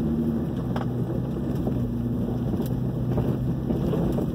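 Off-road truck's engine running steadily at low speed, heard from inside the cab, with a couple of sharp knocks and rattles from the truck jolting over the rough dirt trail.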